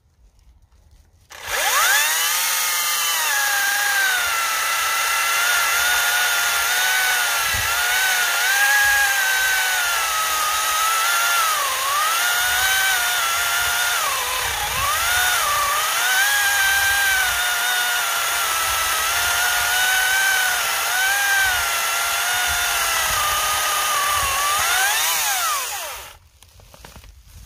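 Cordless Makita 10-inch brushless top-handle chainsaw spinning up about a second and a half in and cutting through a thick birch log. Its high motor whine dips in pitch several times as the chain bogs under load in the cut. It winds down shortly before the end.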